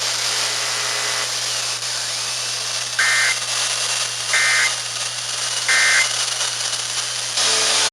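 Emergency Alert System end-of-message code: three identical short bursts of two-tone data warble, about 1.4 seconds apart, marking the end of the alert. They sit over steady radio static hiss and a low hum.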